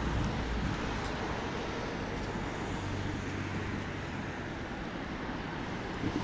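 Steady outdoor engine noise, with a low, steady engine drone that comes in about halfway through.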